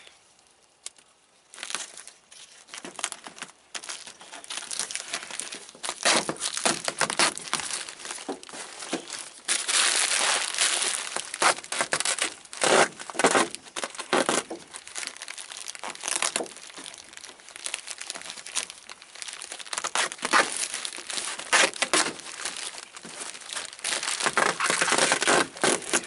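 Plastic jacket of a 6-inch insulated flexible duct crinkling and crackling under the hands as duct tape is pulled off the roll and pressed around it, in irregular bursts.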